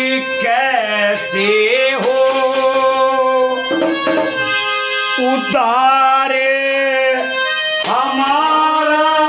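Haryanvi ragni: a male voice sings long, bending held notes over a harmonium drone, with a few sharp percussion strikes.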